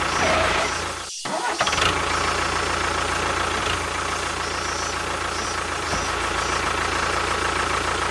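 A motor running steadily with a continuous low hum, briefly cutting out about a second in.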